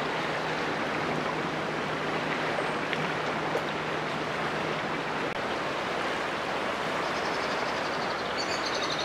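Steady rushing of a flood-swollen river in spate, an even wash of water noise.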